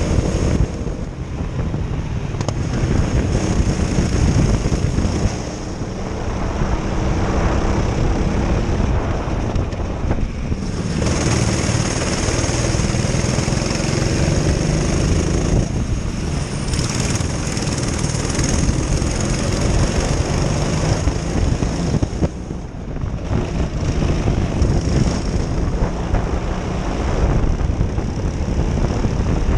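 Racing kart's twin Honda four-stroke engines running hard from the driver's seat. The engine note drops and then climbs again about five times as the throttle is lifted for corners and reopened.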